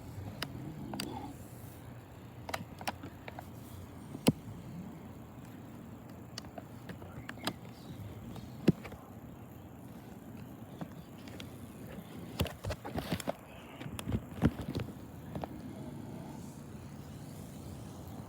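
A man snoring loudly in his sleep, a low rattling rumble that swells and fades with his breathing. A few sharp clicks or taps cut through it, the loudest of them a cluster near the end.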